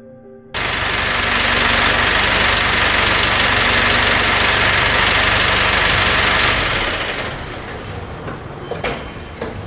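A motor vehicle's engine running, cutting in abruptly about half a second in and easing off after about six seconds, with a few sharp knocks near the end.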